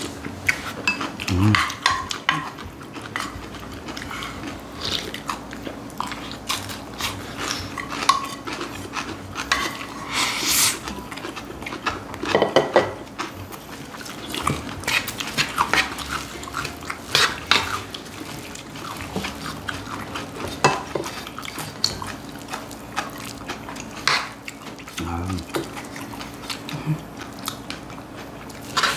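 Spoons scraping and clinking against a pan of bibimbap and against bowls as two people scoop and eat, in many short irregular clicks, with eating noises and a few brief low murmurs.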